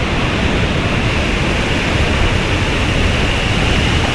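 A waterfall pouring: a steady, loud rush of water that does not change.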